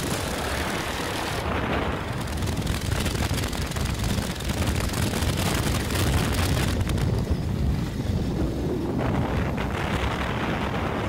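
A Royal Enfield 500 single-cylinder engine running on the move in a cafe-racer custom motorcycle, with wind buffeting the microphone of a vehicle riding alongside.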